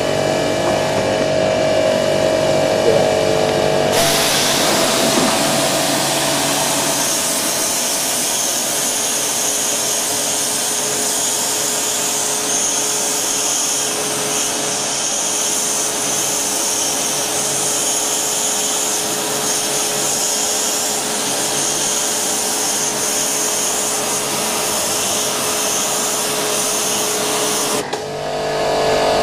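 High-pressure washer's machine humming steadily. About four seconds in, the spray starts with a sudden loud hiss of the water jet against a slatted grille; the hiss holds steady and cuts off about a second before the end, leaving the machine's hum.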